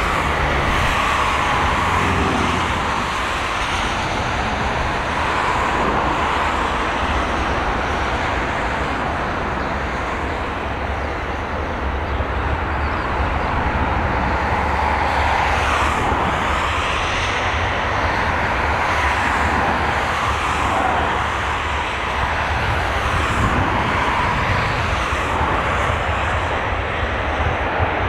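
Jet engines of an Airbus A380-800 running as the airliner rolls on the ground: a continuous, steady jet noise with a deep rumble underneath.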